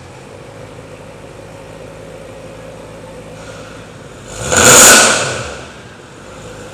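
BMW M3 with an Armytrix aftermarket exhaust idling steadily, then one sharp throttle blip a little over four seconds in that revs up and falls straight back to idle.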